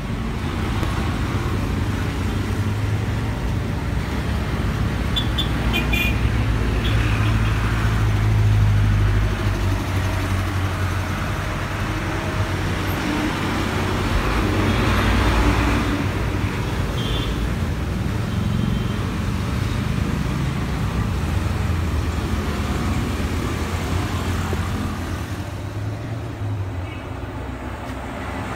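Steady roadside traffic noise, swelling twice as vehicles pass close by.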